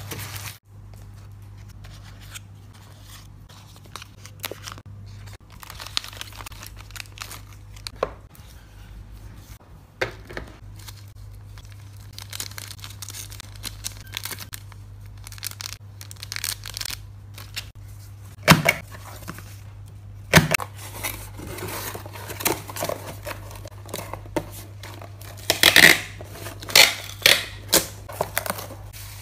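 Close-up packing-table sounds: plastic packaging crinkling and small items being handled, with scattered light clicks and taps. Near the end comes a run of louder rips as packing tape is pulled from a dispenser and pressed onto a small cardboard box.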